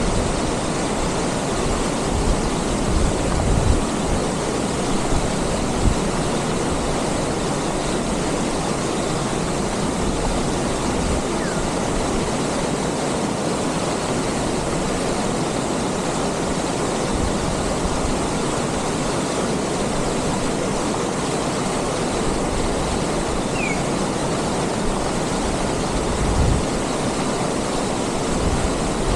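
River water pouring steadily over a small weir and crashing into the pool below, a constant rushing roar. A few low thumps come a few seconds in and again near the end.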